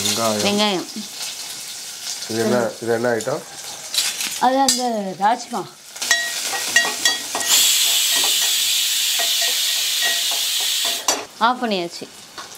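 Chopped small onions frying in hot oil in an aluminium pot, stirred with a steel ladle. There are a few metal clinks of ladle on pot about six seconds in, then a loud, steady sizzle for several seconds.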